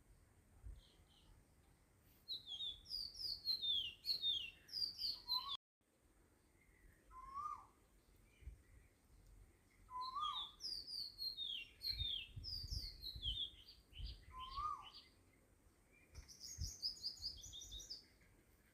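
Small birds chirping in quick clusters of short, high, falling notes, with a lower hooked call repeated several times. The sound cuts out completely for a moment about five and a half seconds in.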